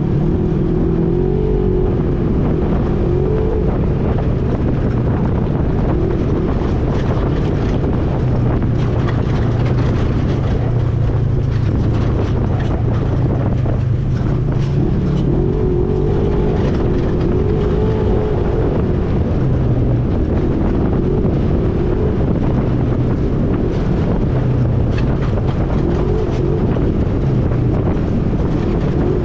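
ATV engine running under way, its pitch rising and falling as the throttle changes.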